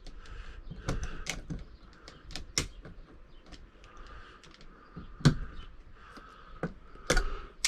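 Irregular light clicks and ticks as electrical wires are handled during wiring, with louder knocks about five seconds in and just after seven seconds.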